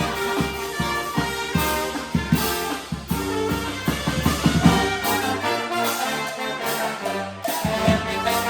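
Charanga brass band playing an EDM tune: trumpets and trombones carry the melody over drums. About five seconds in, the deep bass drops away and the brass carries on over lighter percussion.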